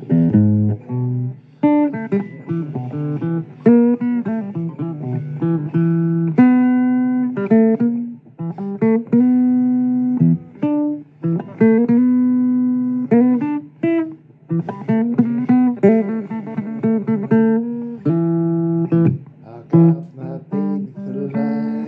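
Acoustic blues guitar playing an instrumental break, with picked single-note phrases that ring and fade over bass notes.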